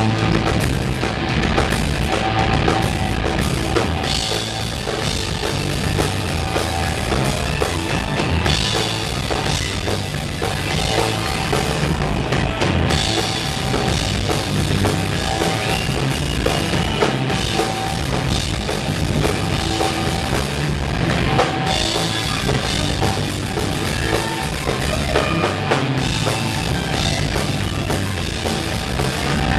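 Live rock band playing loud: drum kit and amplified electric guitars.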